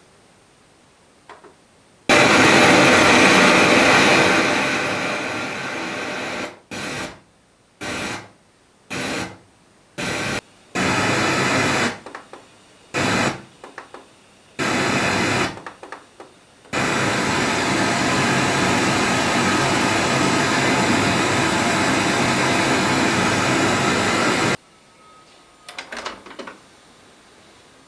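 Loud hiss of static from the Aiwa NSX-S52 hi-fi's speakers, cutting in suddenly about two seconds in, switching off and on about eight times in the middle, then running steadily before stopping abruptly near the end.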